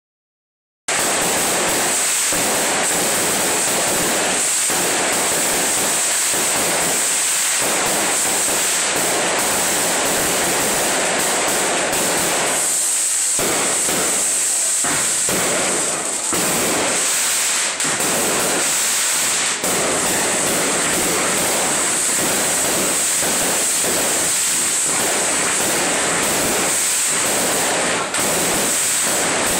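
Small boxed firework burning with a steady, loud hiss, which starts about a second in.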